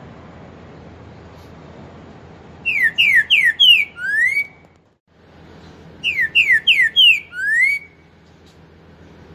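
Green-winged saltator (trinca-ferro) singing its 'four-note boi' song twice: four quick, falling whistled notes, then a rising, held final note.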